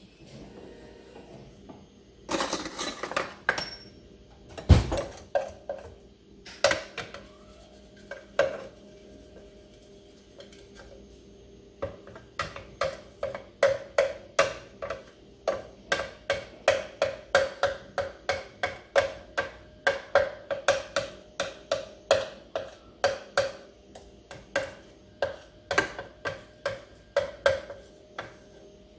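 A spatula scraping and knocking against the inside of a plastic Ninja blender pitcher, working ground peanut butter off the sides. A few strokes and one heavy thump come in the first five seconds, then a long run of quick strokes, about two a second.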